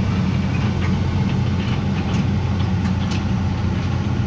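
A vehicle engine running steadily with a low drone, with light rattles and clicks over it.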